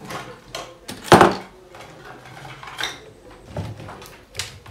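A string of separate clinks and knocks from a plug and cables being handled while they are plugged in, the loudest about a second in.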